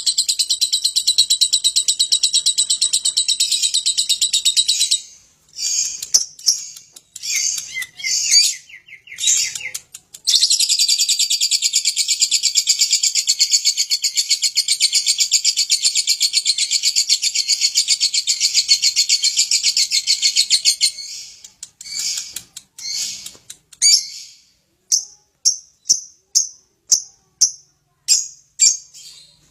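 Lovebird 'ngekek': a long, very fast, shrill chattering trill that breaks off about five seconds in into scattered notes, then a second unbroken trill of about ten seconds, ending in separate short chirps about two a second.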